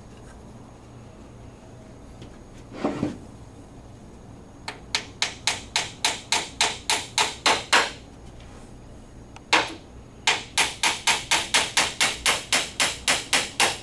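Hammer tapping a 2-inch wooden dowel pin into a hole in a wooden table frame: a run of quick light strikes at about four or five a second, a single blow, then a second, longer run. A dull thump comes about three seconds in, before the strikes start.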